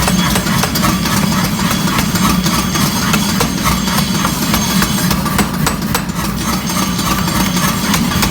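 A steady motor hum with many sharp clicks and knocks scattered irregularly over it.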